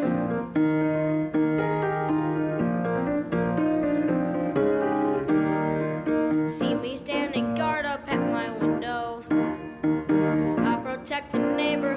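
Piano accompaniment playing a show-tune interlude of chords and melody; about halfway through, a boy's singing voice comes in over it.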